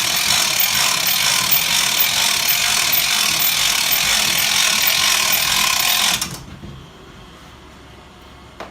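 Dump-Dolly garbage-can hand truck lift raising a loaded can: its lift mechanism runs with a steady grinding noise that cuts off suddenly about six seconds in as it reaches the top. A single short click follows near the end.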